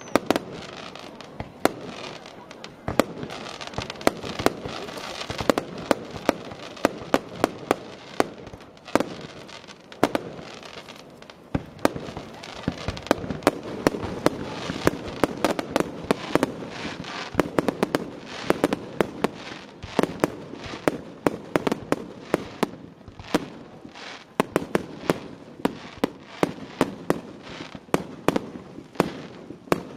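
Fireworks display: a rapid, irregular string of sharp bangs and crackles from bursting shells, dozens of them without a break, with a steady hiss between them.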